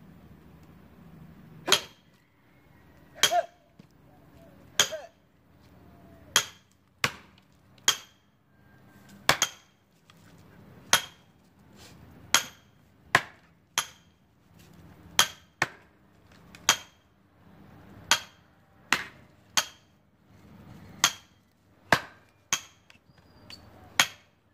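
Heavy blows from axes or a sledge splitting an almond log, about twenty sharp strikes with a short ringing crack, coming roughly every second or so and sometimes in quick pairs as two men take turns.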